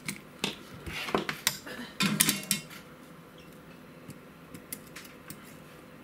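Light metal clinks and rattles from handling a soldering iron and a helping-hands clamp that holds a brass RCA connector. They come in a cluster over the first two and a half seconds, loudest just after two seconds, then give way to a few faint ticks.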